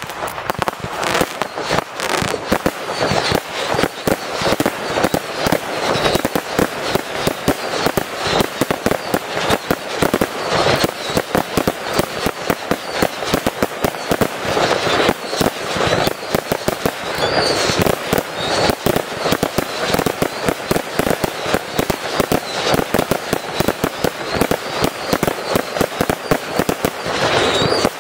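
Fireworks display: a rapid, unbroken string of bangs and crackles from shells bursting.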